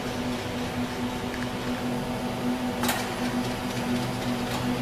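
SMT pick-and-place machine running with a steady mechanical hum, with a brief hiss about three seconds in.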